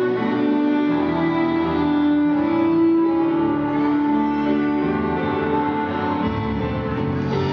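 Instrumental ballroom dance music with a melody of long held notes.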